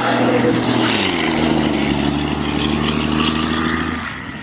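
Ikarus city bus's diesel engine pulling hard, its note dropping in pitch about a second in, then holding steady and fading a little near the end as the bus drives away.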